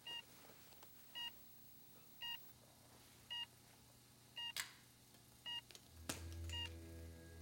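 Hospital patient monitor beeping steadily, a short pitched beep about once a second, the heart-rate tone of a comatose patient. A sharp click falls about halfway through, and a low droning hum comes in about six seconds in.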